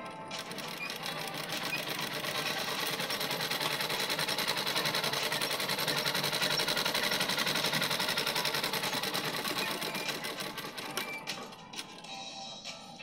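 Sewing machine stitching piping onto fabric, the needle running in a fast, even rattle; it speeds up over the first few seconds, runs at full speed, then slows and stops near the end.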